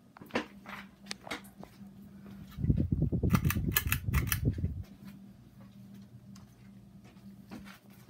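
Hampton Bay ceiling fan running with a steady low hum. Scattered clicks sound over it, and a loud rumble with sharp clacks lasts about two seconds in the middle.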